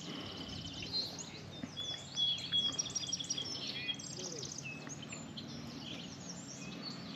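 Several songbirds chirping and singing, with overlapping quick high notes and one longer whistled note a couple of seconds in, over a faint steady background hiss.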